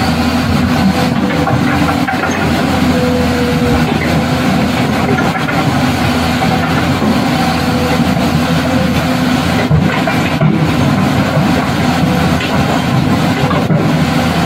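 Steady engine noise of a motor vehicle running, even in level throughout, with no revving.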